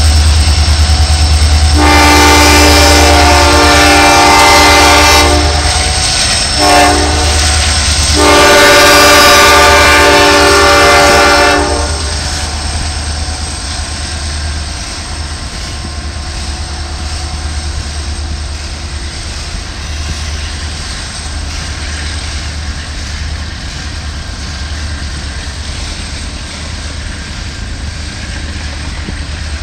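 Norfolk Southern GE Dash 9 diesel locomotives sounding a multi-note air horn in three blasts, long, short, then long, over the heavy low rumble of the diesels pulling a freight train under load. After about twelve seconds the horn stops and the steady rolling noise of the freight cars passing remains.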